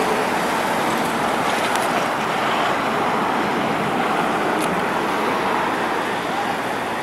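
Steady road traffic noise from passing cars, an even rushing hum with one small tick about four and a half seconds in.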